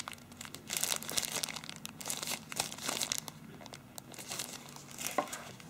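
Thin plastic bag crinkling in the hands as bagged earphones are handled, with irregular crackles and a few sharper ones about a second in and near the end.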